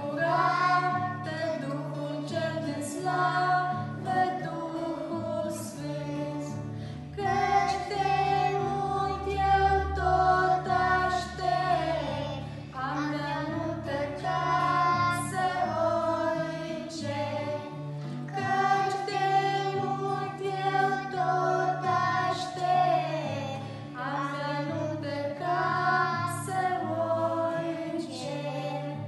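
Young girls and a young woman singing a song together, with a strummed acoustic guitar accompaniment.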